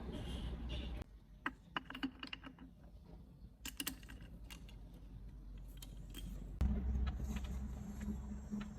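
Lathe motor humming, then cut off about a second in. A quieter stretch of scattered light metallic clinks and taps follows, and near the end the motor starts again with a steady low hum.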